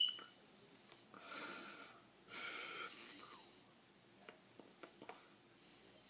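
A person's breathy, wheezy exhales, two of them, about a second in and just after two seconds, then a few faint clicks.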